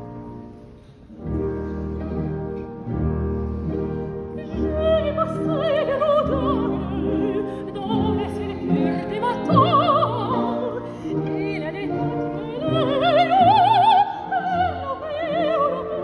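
Operatic soprano singing with wide vibrato over a symphony orchestra. The orchestra plays sustained chords first, the voice enters about four seconds in, and it climbs to its loudest high notes near the end.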